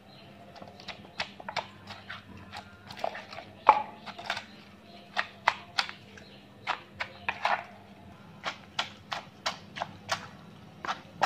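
Wooden pestle knocking in a wooden mortar, pounding shredded green papaya into the seasoning for papaya salad. The knocks are irregular at first, about two a second, and become steadier and closer together in the second half.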